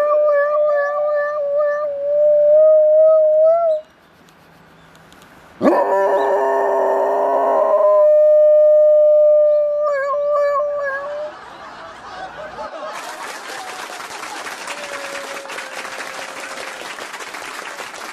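A dog howling like a siren in long, steady, held notes with a slight waver, set off by a passing police siren. A louder, fuller-sounding note comes in the middle, and the howling gives way to a steady rushing noise for the last several seconds.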